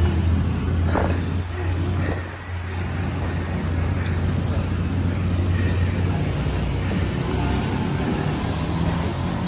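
Motor traffic on a city street, with a nearby engine's steady low hum that weakens about seven seconds in.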